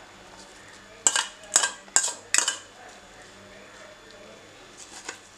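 A steel dish clinks against a bowl four times, about half a second apart, as fried potato slices and onions are tipped into beaten egg; a couple of fainter clinks come near the end.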